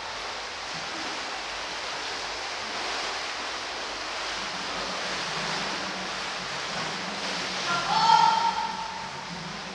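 Pool water splashing and churning steadily as a group of people jog and move through it in an exercise class. About eight seconds in, a voice briefly calls out high above the splashing.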